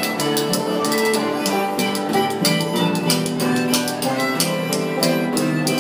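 Acoustic old-time string-band music: sustained melody notes over a steady strummed beat.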